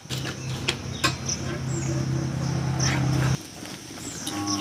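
Metal spatula scraping and tapping on an iron tawa as egg is folded over bread slices. A steady low hum runs under it and stops suddenly about three seconds in.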